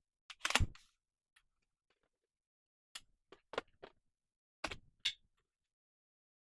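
Hard plastic clicks and knocks as the parts of a cordless stick vacuum are handled and snapped together: a louder knock about half a second in, then a handful of separate clicks around the middle.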